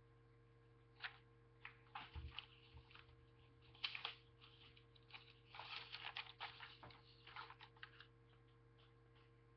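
Faint paper rustling and handling: irregular crackles and short rustles, thickest in the middle of the stretch, over a steady low hum.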